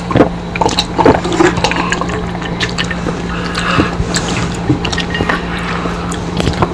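Close-miked eating sounds: wet chewing and lip smacks with many small clicks, as fingers pick at fried tilapia, over a steady low hum.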